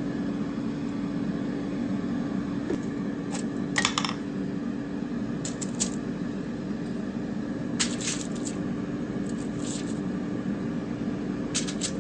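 Light clinks, taps and rustles of wooden skewers of bacon-wrapped smokies being handled on a ceramic plate and laid on a foil-lined baking pan, in about half a dozen short clusters, the sharpest just before 4 s and around 8 s. A steady low hum runs underneath.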